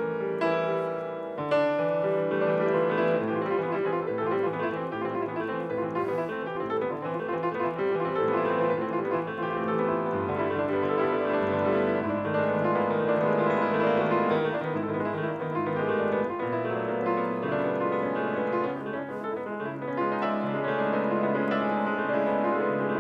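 Grand piano played solo: dense, continuous clusters of many overlapping notes, thinning briefly about three quarters of the way through before filling out again.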